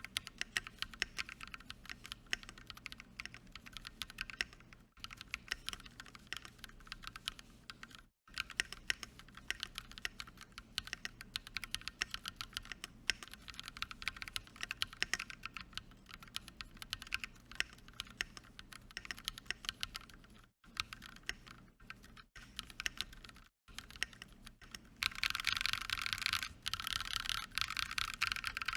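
Mechanical keyboard with Akko CS Wine Red linear switches on an aluminum plate being typed on steadily, a quick clacky patter of keystrokes with a few brief pauses. A louder, denser run of fast typing comes near the end.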